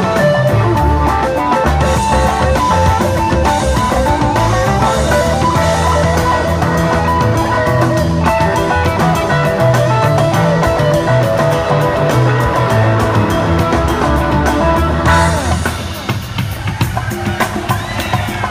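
Live rock band playing an instrumental passage on electric bass, electric guitar, keyboards and drums. About fifteen seconds in, the full band drops back and sparser drum hits carry on.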